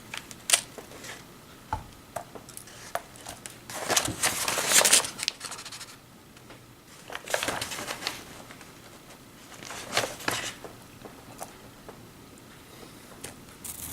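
Hands sifting through RC kit parts and plastic parts bags on a workbench: crinkling rustles in a few short bursts, with scattered light clicks and taps of small plastic parts.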